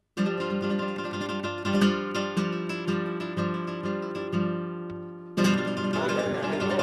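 Acoustic guitar music, strummed in a steady beat. About five seconds in it jumps louder and the murmur of voices joins in.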